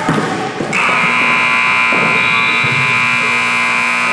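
Gym scoreboard buzzer sounding one long, loud, steady buzz that cuts in under a second in and holds for several seconds.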